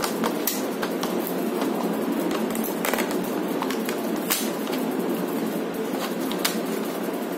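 Plastic wrap and sticky tape being handled over a hard plastic tray, with scattered crinkles and clicks over a steady background hum.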